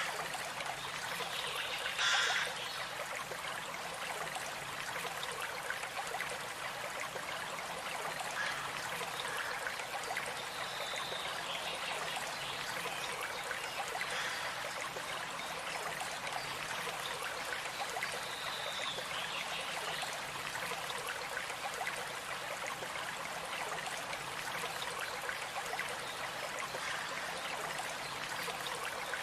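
Small stream running steadily over stones, a continuous trickling and babbling of water. A few brief higher-pitched sounds rise above it, the loudest about two seconds in.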